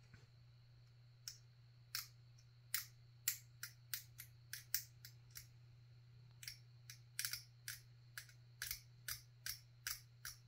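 A run of small, sharp, irregular clicks, two or three a second, starting about a second in: plastic model-kit parts and small hobby tools being handled at the bench.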